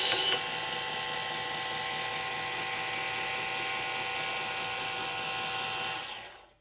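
Belt grinder running steadily, a knife handle held against the abrasive belt and being sanded, with a few rough bursts of contact in the first moment. The noise fades out quickly near the end.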